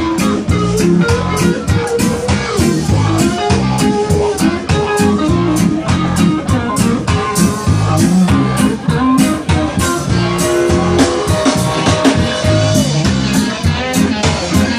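Live reggae band playing, with electric guitar, bass and a steady drum-kit beat.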